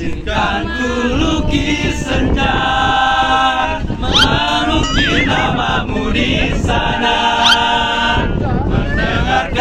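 A mixed group of young voices singing a pop song together in chorus, with two quick, high rising whoops partway through.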